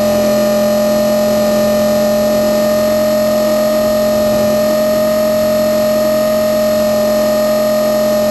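Blade 450 X electric RC helicopter in flight, heard from on board: the brushless motor, gears and rotors give a loud, steady whine at a constant pitch.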